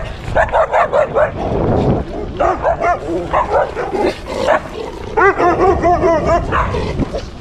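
A small dog barks and yaps rapidly over and over as it chases, with the calls crowding together about five seconds in. A steady low rushing noise runs underneath.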